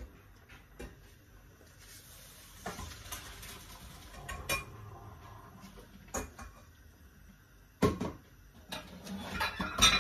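Metal cookware handled at a gas hob: a few seconds of hissing early on, then sharp knocks and clatter of pans and utensils, loudest about eight seconds in and again near the end.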